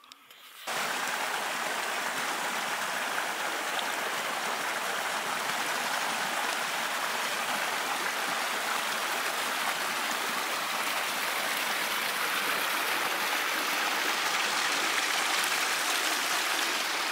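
Steady rushing of running water, like a forest stream. It cuts in abruptly about a second in and holds an even, unbroken hiss.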